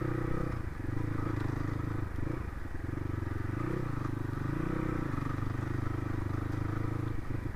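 Crossfire RM250 dirt bike engine running at low speed on a rough dirt trail: a steady low engine note with a few small dips and swells in pitch as the throttle is eased off and opened again.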